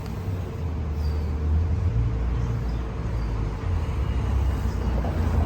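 Street ambience: a low, uneven rumble of road traffic.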